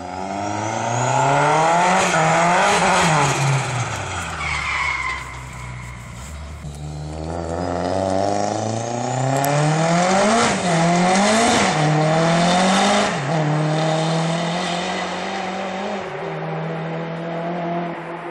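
Turbocharged 2.4-litre four-cylinder Cosworth YB engine of a Ford Escort MK2 rally car accelerating hard, its note climbing and dropping sharply with quick gear shifts. There is a brief high squeal about four seconds in. Near the end it settles to a steadier note.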